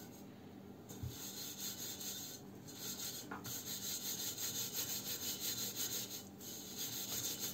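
Wet steel wool scourer rubbing the burnt, blackened outside of a metal teapot in quick back-and-forth strokes, a scratchy scrubbing that starts about a second in, with a couple of short pauses.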